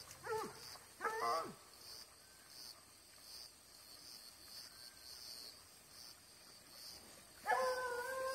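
Distant hunting hounds giving voice on the trail of wild boar: two short falling barks in the first second and a half, then a long drawn-out bay near the end.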